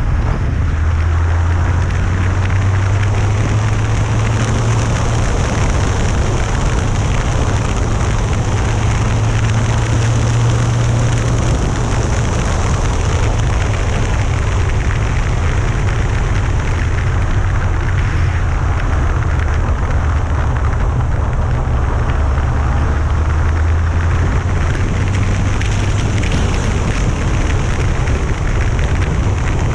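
Loud, steady wind rush on the microphone of a motorcycle-mounted camera at road speed, over the low drone of a Yamaha FJR1300's inline-four engine that rises and eases slightly in pitch a few times.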